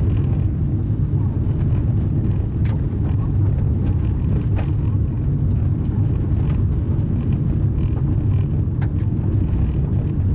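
Car driving on a gravel road: a steady low rumble of tyres on gravel, with scattered sharp clicks of loose stones striking the car.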